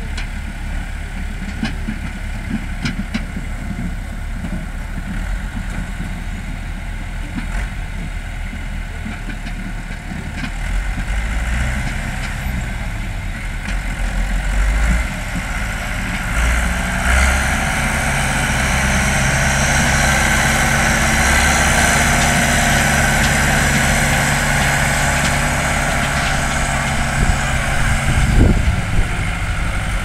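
Tractor engines running steadily. About halfway through, an engine grows louder and stays louder, with a steady hiss above it.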